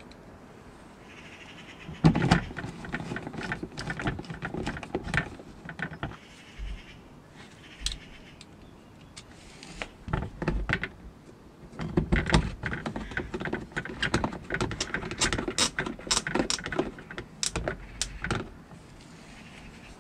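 Hand screwdriver working the screws of a Volkswagen Golf Mk5's plastic engine undertray: rapid, irregular clicking and light rattling. It comes in two bouts, one starting about two seconds in and lasting some four seconds, the other starting about twelve seconds in and lasting about six.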